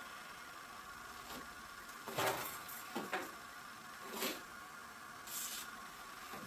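Small objects being handled by hand: a few separate short clicks and knocks spread over several seconds, with one brief hiss near the end, over a faint steady hum.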